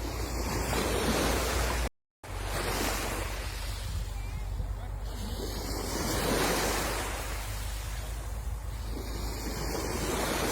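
Sea waves breaking and washing on the shore, swelling and easing every few seconds, with a low wind rumble on the microphone. The sound drops out abruptly to silence for a moment about two seconds in.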